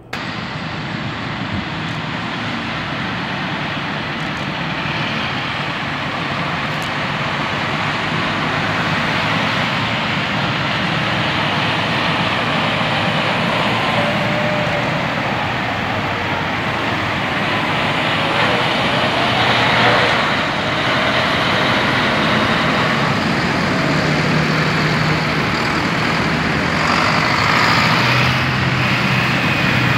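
A column of large farm tractors driving past on a road, their diesel engines running under a steady rush of traffic noise. Around the middle, an engine's pitch swings up and down as it passes.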